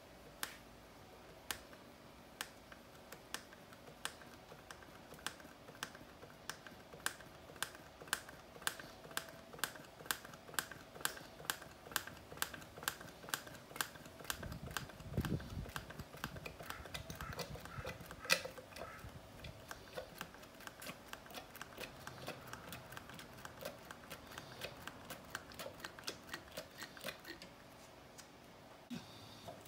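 A long run of sharp mechanical clicks, about one a second at first and quickening to two or three a second, over a faint steady hum, with a low thud about halfway through.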